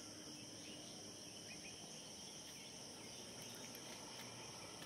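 Faint, steady insect chorus: a continuous high-pitched drone.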